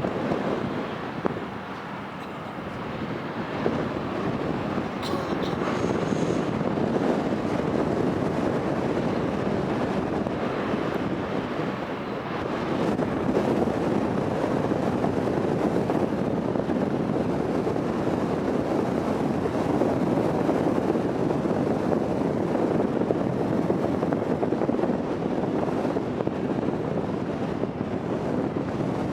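A 121 m ferry's engines and propeller wash running steadily as the ship manoeuvres out of port, mixed with wind noise on the microphone. There is a brief sharp click about a second in.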